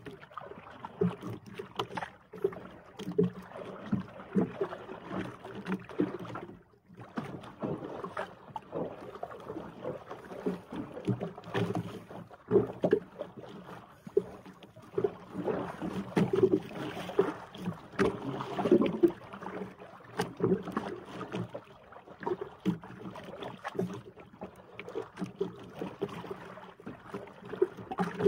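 Water slapping and sloshing against the hull of a small outrigger boat, with irregular knocks throughout.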